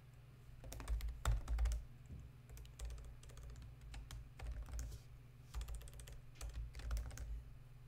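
Typing on a computer keyboard: irregular bursts of quick keystrokes, with short pauses between them, over a steady low hum.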